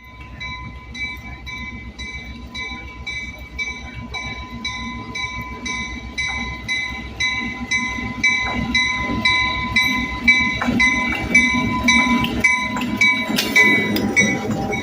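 A bell ringing steadily about twice a second as a train pulls in, with the train's rumble growing louder over the last few seconds.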